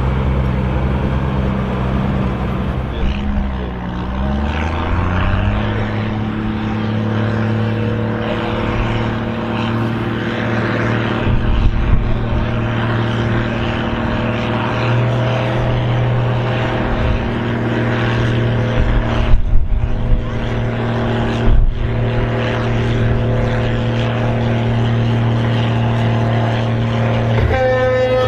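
Mercedes-Benz MB Trac 1500's six-cylinder turbo diesel running hard under load, pulling the tractor-pulling sledge. Its note dips and then climbs about four seconds in and after that holds one steady pitch. Two sharp loud knocks come about two-thirds of the way through.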